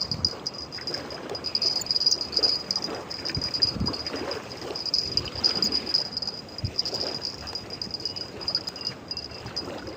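Insects chirring, one steady high-pitched trill without a break, over faint rustling and a few soft knocks.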